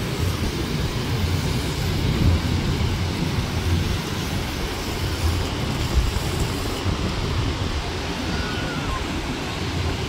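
Wind buffeting the microphone in a steady low rumble, over the even wash of surf breaking on the beach.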